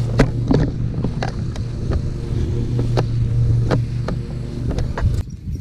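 Husqvarna Z248F zero-turn mower running with a steady engine hum while mowing tall grass, with scattered clicks and knocks throughout. The sound stops abruptly about five seconds in.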